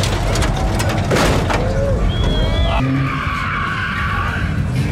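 Hydraulic lowrider hopping on its suspension: sharp bangs as the car drops and bounces, loudest about a second in, over a steady low rumble, with a shout from onlookers.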